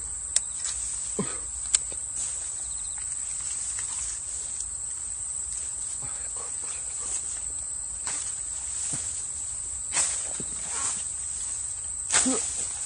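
Steady, high-pitched chorus of summer insects, with a few sharp clicks and brief rustles of fishing tackle and reeds being handled close by.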